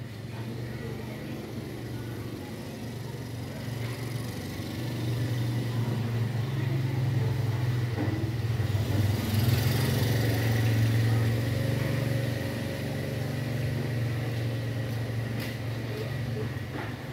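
A motor vehicle's engine running with a steady low hum, growing louder over several seconds to a peak about ten seconds in, then easing off as it passes.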